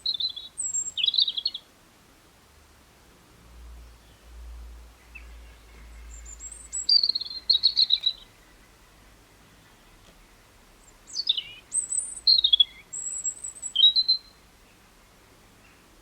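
A small songbird singing short phrases of high whistled and trilled notes with quick downward slurs, in three bursts separated by pauses of a few seconds.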